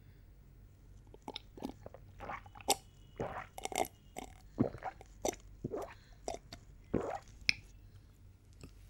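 Close-up mouth sounds of someone drinking: a run of about a dozen irregular gulps and swallows, starting about a second in and stopping near the end.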